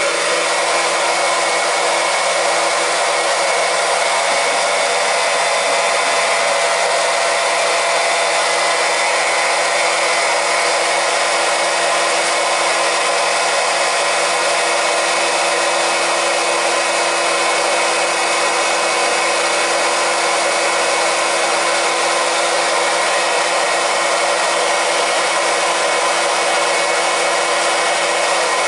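Electric transfer pump running steadily, a constant hum over a hiss, as it circulates propylene glycol antifreeze from a bucket through the boiler's heating zones and back out a hose into the bucket to purge the air.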